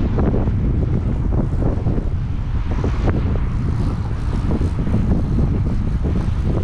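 Wind buffeting a helmet camera's microphone while cycling, a steady, fluttering low rumble, with cars going by on the highway alongside.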